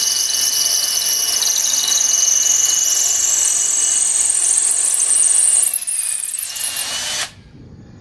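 Cordless drill boring into a concrete slab with a multi-material drill bit: a steady grinding drill sound with a high whine that slowly rises in pitch. The sound changes about six seconds in and stops suddenly a second later as the hole is finished and the drill stops.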